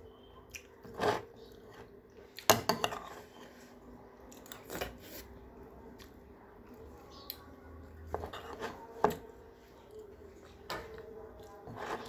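Metal spoon clinking and scraping against a ceramic plate during a meal, in scattered sharp knocks about a second apart, with some chewing in between.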